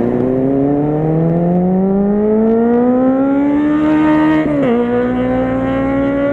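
Motorcycle engine accelerating hard, its pitch climbing steadily, then dropping sharply at a gear change about four and a half seconds in and climbing again.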